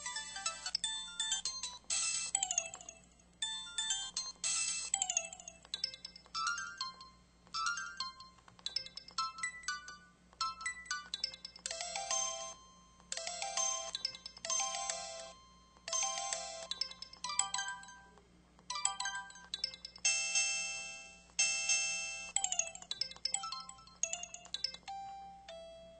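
Samsung SPH-S4300 mobile phone playing its built-in effect sounds one after another: a run of short electronic chimes and jingles, each a second or two long, with brief pauses between them.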